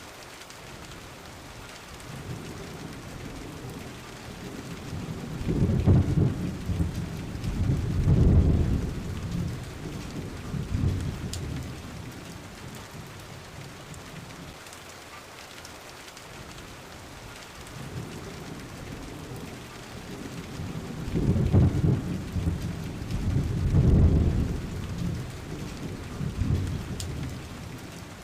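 Steady rain falling, with two long rolls of thunder that rumble low for several seconds each. Each roll swells twice before fading back under the rain.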